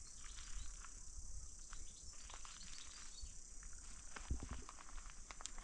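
Steady high-pitched chirring of insects, with scattered light clicks and knocks.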